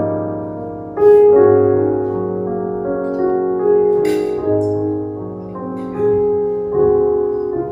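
Piano playing slow, held chords, a new chord struck every second or two and fading between strikes.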